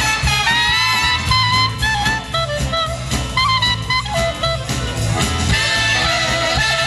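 Live band playing an upbeat tune, with a clarinet carrying the melody over saxophones, trumpet, drum kit and a steady bass beat.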